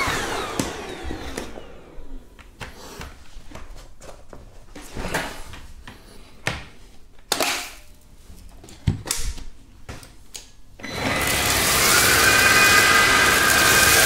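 Xiaomi G11 cordless stick vacuum switched off and winding down, followed by a stretch of scattered knocks and clicks. About eleven seconds in the motor starts again and runs steadily with a high whine, its powered main brush on a tile floor.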